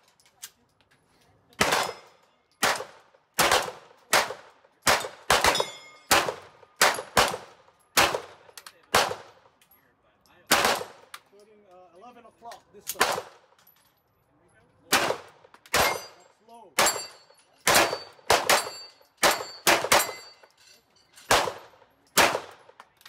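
HK P2000 9mm pistol fired in a steady string at steel targets, about two shots a second, with a pause of a few seconds near the middle. Some shots are followed by a high ringing of struck steel.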